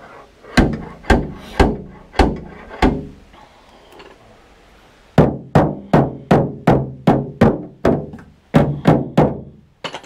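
Slide hammer of a stud-welder dent puller knocking against its end stop while pulling a welded-on stud to draw a crease out of a car door panel. Five sharp knocks, a short pause, then a faster run of about a dozen at roughly three a second.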